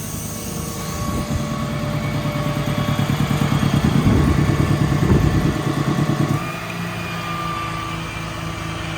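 Truck's Cummins 6.7 diesel engine running and speeding up over a few seconds. About two-thirds of the way in it drops back suddenly to a lower steady speed.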